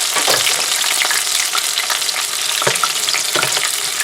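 Panko-breaded chicken breast pieces frying in hot oil, a steady dense sizzle and crackle, with a few soft knocks, once near the start and twice near the end.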